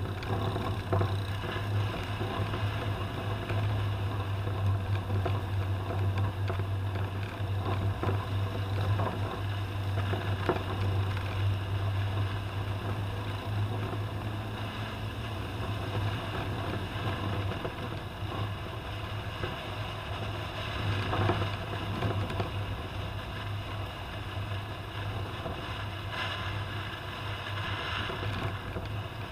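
Toyota Land Cruiser driving on a rough off-road track: a steady low engine drone under road and wind noise, with a few faint knocks from the bumps.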